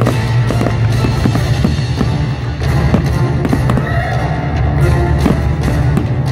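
Music playing with aerial firework shells bursting through it, a run of sharp bangs at irregular intervals.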